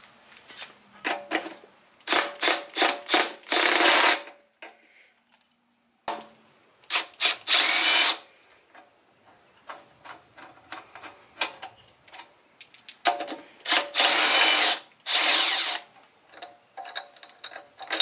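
A handheld drill-type power tool with a socket, run in short trigger blips and then longer runs of a second or two. The motor speeds up and slows down as it spins the nuts and bolts off the motorcycle's fork and steering-stem top yoke. There are three groups of runs with pauses between them.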